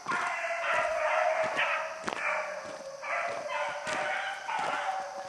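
A pack of beagles baying together in a string of overlapping half-second cries, the sound of hounds running a rabbit.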